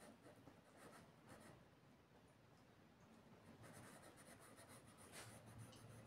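Faint scratching of a small hazuya finger stone rubbed under a fingertip along a folding knife's steel blade, in quick short strokes that ease off for a moment midway. It is the stone raising the hazy kasumi finish on the blade.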